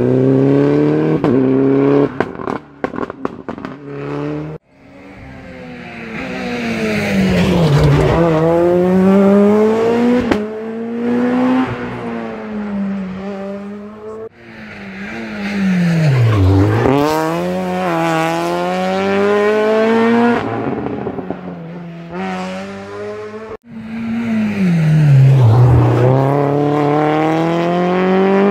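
Rally car engines, one car after another, each braking into a hairpin with the engine note dropping low and then accelerating away, its pitch climbing in steps through the gear changes. A burst of crackles sounds in the first few seconds, and each car's sound is cut off sharply as the next begins.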